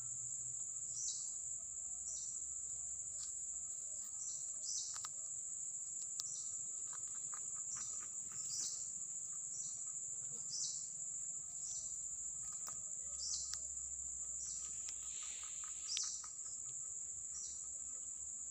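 A steady high-pitched insect drone, such as crickets, runs throughout. Over it, a short call that falls in pitch repeats about once a second.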